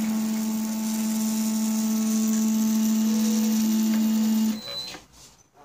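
Stepper motors of a homemade CNC gantry running at a steady speed as they move the tool head: a steady, even-pitched whine with overtones that stops about four and a half seconds in.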